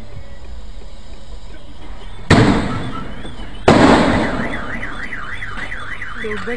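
Two loud sharp bangs about a second and a half apart, the second fading more slowly, then a car alarm warbling, its pitch rising and falling about three times a second.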